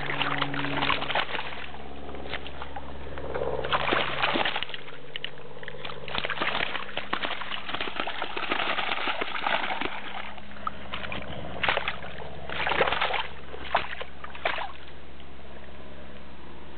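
Water sloshing and splashing in short irregular bursts around a carp held in a mesh keep tube, over a steady low hum.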